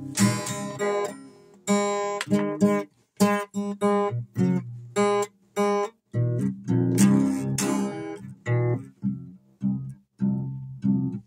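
Acoustic guitar with a broken string, played as an improvised jam: chords strummed in short choppy strokes, each damped quickly so that brief silences fall between them.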